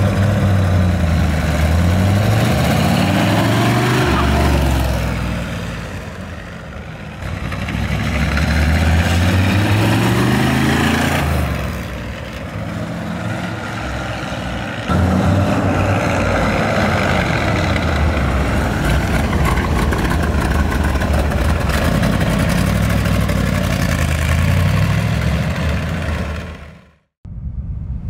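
1969 Chevrolet Corvette's 350 small-block V8 accelerating hard several times over, its pitch climbing through each gear and falling back at the shifts. The engine sound cuts off sharply near the end.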